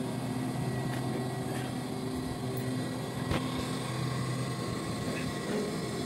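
Air handling unit's electric fan motor running with a steady hum while its blower drive belt is broken, with one sharp click about three seconds in.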